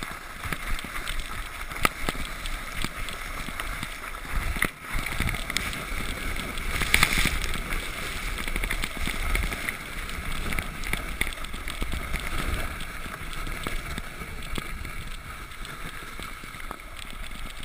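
A sled sliding fast down a packed-snow trail: a steady rushing scrape of the sled over the snow with a low rumble, and a few sharp knocks over bumps, one about two seconds in.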